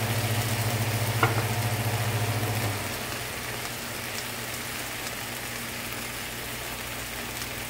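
Eggplant and tomato sauce sizzling in a frying pan, with a faint click or two from the spoon. A low steady hum, the loudest part, cuts off about three seconds in.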